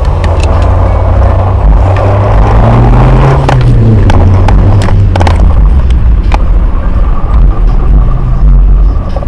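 A car being driven, its engine and road noise a loud, dense low rumble; the engine note rises about three seconds in and then drops back. Scattered sharp clicks and knocks come through over the rumble.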